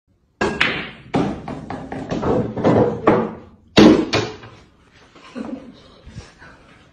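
A run of knocks and thumps on a pool table as a kitten bats at billiard balls, each one fading quickly. The loudest comes near four seconds in, then only a few faint taps.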